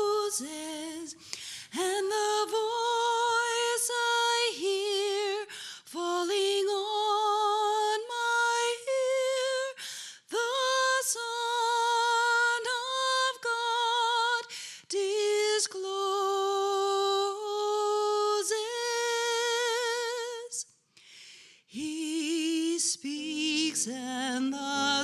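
A woman singing solo and unaccompanied, holding long notes with a wide vibrato, with a short break about 21 seconds in. Near the end, low instrumental chords come in under her voice.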